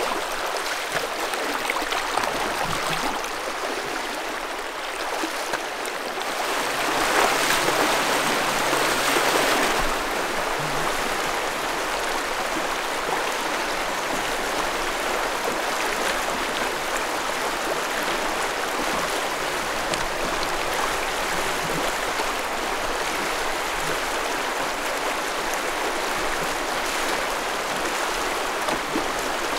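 Shallow river water rushing over rocks in a steady wash, louder for a few seconds about a quarter of the way in.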